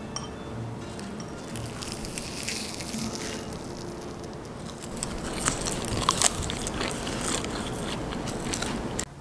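A sheet of crisp roasted seaweed (gim) crackling and crunching as chopsticks fold it around rice. The crackles grow louder and denser in the second half.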